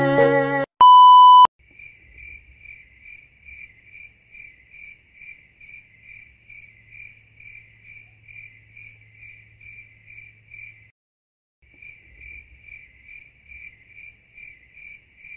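A bowed-string music phrase cuts off, then a loud single-pitch beep sounds for about half a second. After it, crickets chirp steadily, about three chirps a second over a low hum, breaking off for under a second about two-thirds of the way through.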